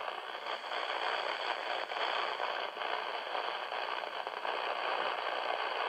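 Grundig G6 Aviator portable radio tuned to the air band, its speaker giving a steady hiss with faint crackle from the empty channel between transmissions.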